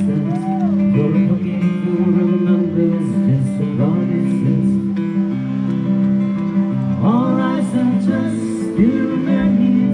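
Live acoustic guitar accompanying singing, with held notes and sung phrases rising and falling.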